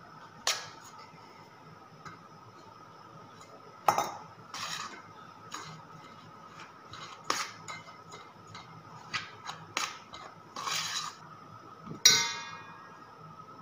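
Metal spoon stirring and scraping damp powdered red poha in a stainless steel bowl, with scattered clinks of the spoon against the bowl. About twelve seconds in, one louder metal clank rings briefly.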